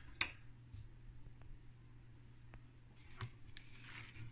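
Handling of a small aluminium instrument box: one sharp click about a fifth of a second in, then faint scattered clicks and a soft rubbing as the box is tilted and turned on the bench.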